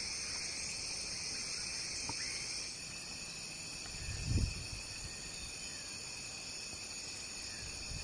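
Rainforest insect chorus: a steady, high-pitched continuous buzzing and trilling. A brief low thump sounds about four seconds in.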